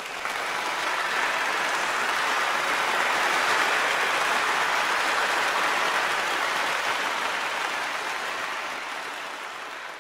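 Crowd applause that swells in over the first second, holds steady, and fades out near the end.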